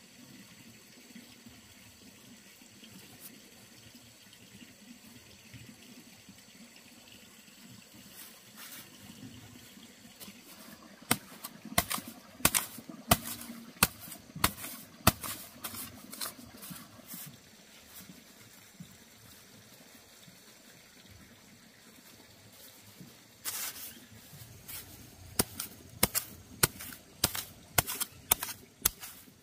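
Dry straw mulch rustling under hands, then two runs of sharp strikes, the first about a third of the way in and the second near the end, as a machete blade chops into the soil through the straw to dig a planting hole.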